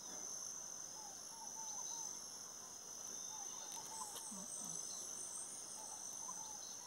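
A steady, high-pitched insect chorus, crickets or similar, with faint short bird chirps scattered through it.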